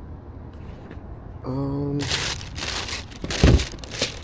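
Sneakers and their shoebox being handled: rustling, with two dull thumps near the end. A short hummed voice sounds about one and a half seconds in.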